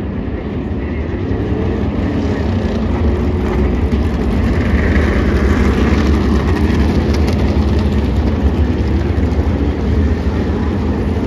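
A field of tour-type modified race cars, V8 engines running at low pace speed in a single file behind the pace car, passing close by. The sound grows louder as the cars come by and is loudest about halfway through.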